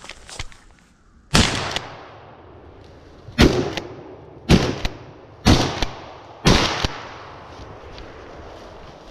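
Pump-action shotgun, a Remington 870, fired five times in quick succession, roughly a second apart, each shot very loud with a short echoing tail.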